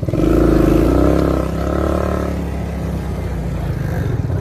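Four-wheeler (ATV) engine revving up, louder for the first second and a half, then running on more steadily.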